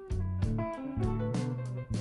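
Background instrumental music led by guitar, with a bass line and a steady beat.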